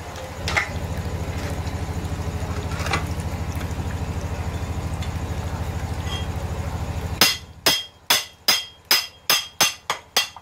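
A cleaver being hammered into a giant oyster's shell with a metal bar: about ten sharp metallic strikes, roughly three a second, over the last three seconds. Before the strikes, a steady low hum.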